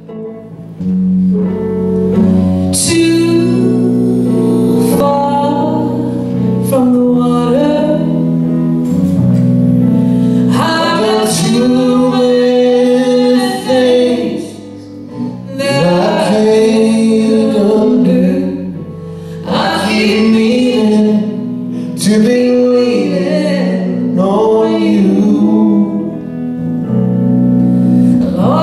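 A live band playing a slow song: guitar and drums under sustained low notes, with a singer's voice carrying the melody.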